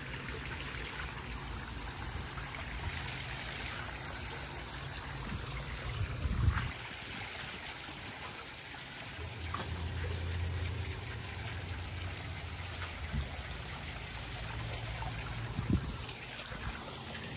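Steady trickle of water running over the stones of a small koi-pond waterfall and from its fountain. Two brief knocks, about six seconds in and near the end.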